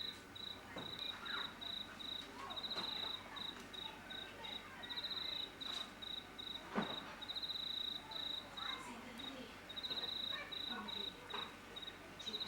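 A cricket chirping in short, high, rapidly pulsed trills that repeat in bursts with brief gaps, with scattered bird calls sweeping in pitch underneath.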